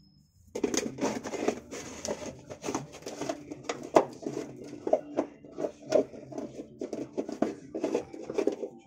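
Puppies scuffling on a tiled floor: a dense run of clicks, scratches and rustles from claws and paws, starting about half a second in.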